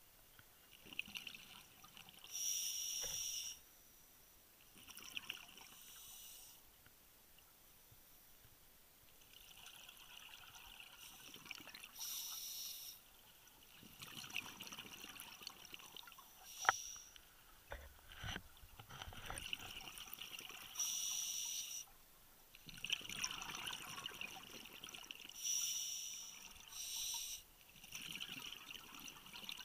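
Scuba diver breathing underwater through a regulator: hissing inhalations and bursts of bubbling exhaust every few seconds, with a single sharp click near the middle.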